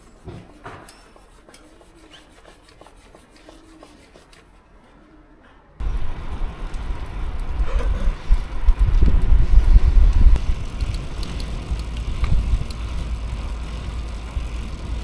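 Faint rubbing and scattered clicks, then about six seconds in a sudden cut to loud, uneven low rumble of wind buffeting the microphone.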